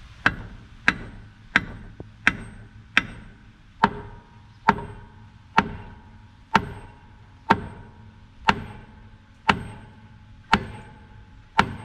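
Hydraulic bottle jack being pumped under load, fourteen sharp metallic clacks about a second apart with a short ring after each, slowing slightly, as the jack presses a seized brake drum and hub off a truck axle.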